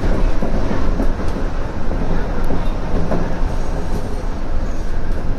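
Shonan Monorail Series 5000 suspended monorail car running along its track, heard from inside the car at the front: a steady, loud running noise from its rubber-tyred bogies.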